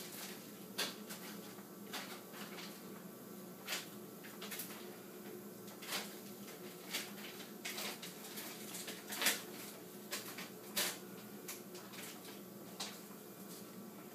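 Steady hum of hospital bedside equipment with a few constant tones, broken by a dozen or so short, irregular clicks and handling noises, the loudest about nine seconds in.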